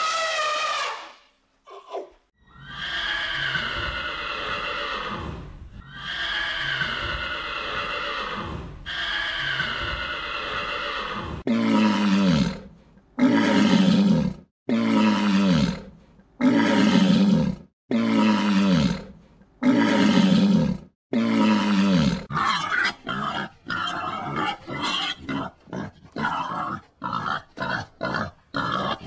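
A run of animal calls: a short falling call, then three long drawn-out cries, then about seven louder, lower calls a little over a second apart. Near the end come quick short calls, several a second.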